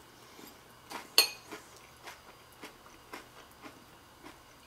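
A metal spoon clinks against a glass bowl of cereal and milk, with one sharp, ringing clink about a second in. Faint soft crunches of crisp rice cereal being chewed follow, about two a second.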